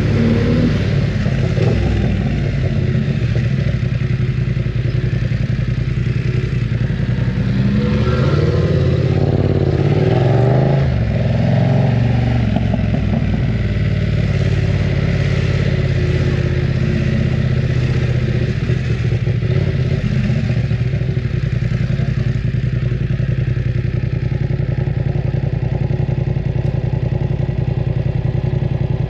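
BMW F900 R motorcycle's 895 cc parallel-twin engine running loud at a mostly steady pitch. The engine speed rises and falls between about eight and thirteen seconds in.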